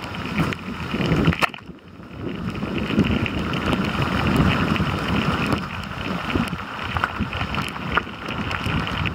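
Wind rushing over the microphone with rough rumbling and scattered clicks and knocks while on the move.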